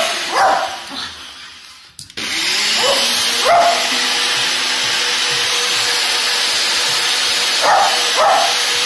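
Kitchen blender running, winding down about a second in, then switched back on abruptly just after two seconds and running steadily. A Lakeland terrier barks at it five times, short sharp barks.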